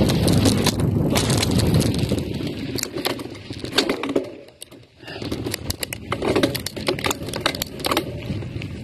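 GT Aggressor Pro mountain bike riding fast down a dirt trail: wind buffeting the microphone and tyres on dirt, with rapid clicks and rattles from the bike over rough ground. The noise briefly drops away about four and a half seconds in, then the rattling picks up again.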